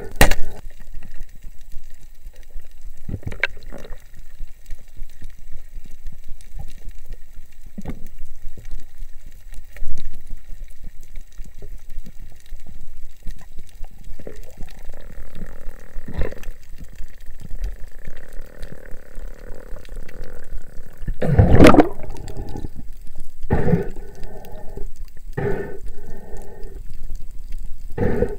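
Water noise heard underwater through a camera housing: a low steady rush of water with several short, louder gurgling surges, the loudest about three-quarters of the way through.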